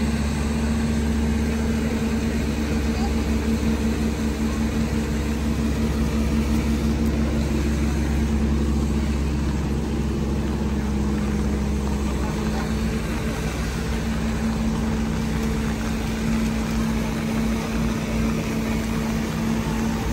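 A large engine idling with a steady low hum and rumble. The deepest part of the rumble eases about twelve seconds in.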